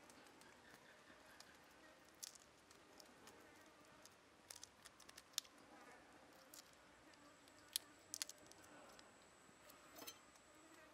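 Faint, scattered clicks and crackles of raw shrimp being peeled by hand, with a knife tapping on a wooden chopping block about ten seconds in. A faint insect buzz runs underneath.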